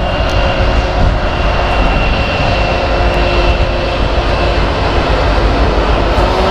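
Diesel-electric freight locomotives led by BNSF 8207, an EMD SD75M, approaching as the train slows: a loud, steady engine roar with a faint high whine over it.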